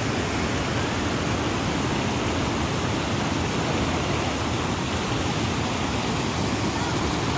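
Steady rushing of fast-flowing water, an even, unbroken wash of sound that is fullest in the low range.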